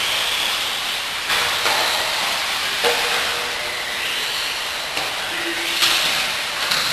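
Electric RC off-road buggies racing: a steady hiss of motors and tyres, with brief high whines that come and go and a few sharp knocks.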